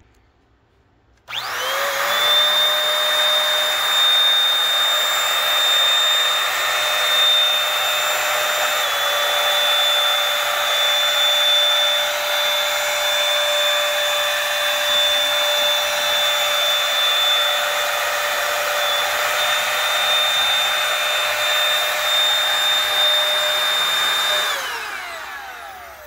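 Dirt Devil Power Stick Lite stick vacuum, a small 2-amp machine, switched on about a second in, its whine rising quickly to speed. It runs loud and steady with a high whine over the rush of air while vacuuming carpet and tile floor, then is switched off near the end, the whine falling as the motor spins down.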